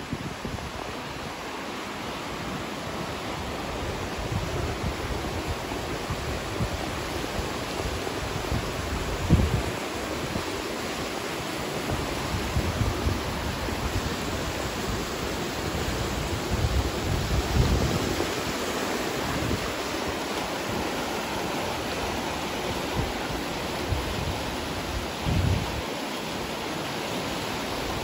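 Brandenberger Ache, a fast Alpine river, rushing over rocks in rapids: a steady wash of water noise. A few short low bumps of wind on the microphone come about a third of the way in, past halfway and near the end.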